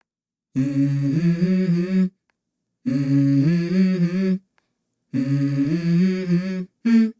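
Background music: the intro of a song, a hummed vocal melody in four short phrases with brief silences between them.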